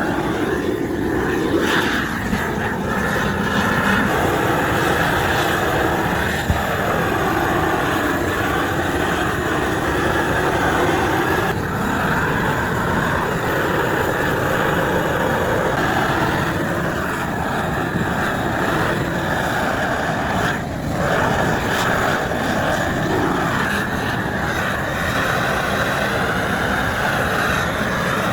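Machinery running with a loud, steady drone, with a single sharp click about six and a half seconds in.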